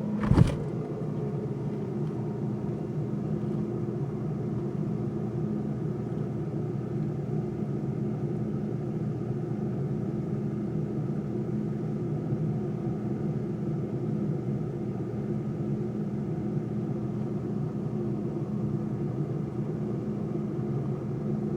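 Freezer running with a steady low hum, with one sharp knock about half a second in.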